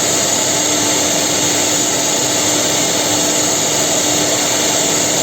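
Holztek HT-R4M four-head CNC router milling a concave wooden chair seat: the spindles run steadily, a constant high whine over the even noise of cutting, with a steady hum underneath.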